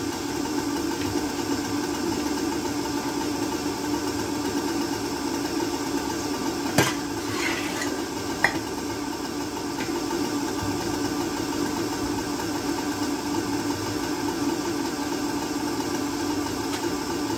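Electric countertop blender motor running steadily at one pitch while it blends oranges into juice. About halfway through, two sharp knocks come a second and a half apart.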